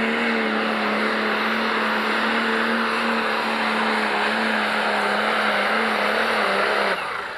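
Pro Stock pulling tractor's turbocharged diesel engine running flat out under load as it drags the sled, one steady engine note over a heavy wash of noise. Near the end the note falls and the sound drops away sharply.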